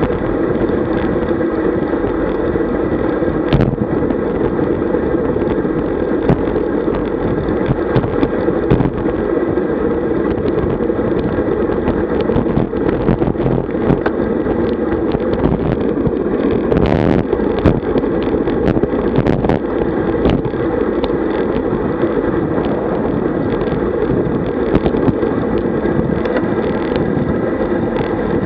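Wind rushing over the microphone of a bike-mounted camera, mixed with tyre noise from a road bike descending at about 45–50 km/h. Scattered sharp clicks and knocks sound through it, with a brief harsher rush about two thirds of the way in.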